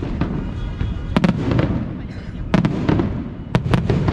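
Aerial firework shells bursting: a run of sharp bangs, several in quick pairs, over a continuous low rumble.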